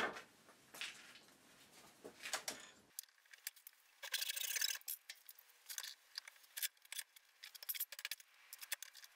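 Hand saw cutting through a 15 mm hardwood dowel in a short run of quick rasping strokes about four seconds in, with light clicks and knocks of wooden pieces and tools on the workbench around it.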